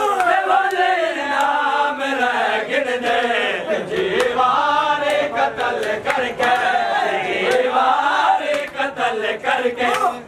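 A crowd of men chanting a Muharram noha together, with sharp slaps of hands striking bare chests (matam) cutting through the singing.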